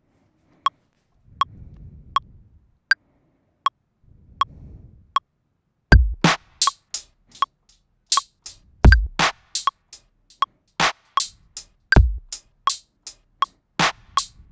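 Ableton Live metronome counting in at 80 beats per minute: short clicks, with a higher click on the first beat of each bar. About six seconds in, a sampled electronic drum kit (Ableton's Analog Kit) starts over the clicks, played live from a MIDI keyboard while recording. It has a kick drum on the first beat of each bar and quicker, brighter hits between.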